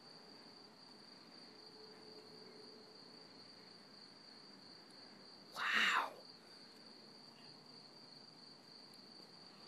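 Crickets trilling steadily in one continuous high-pitched tone. A little past halfway a short voice sound cuts in for about half a second.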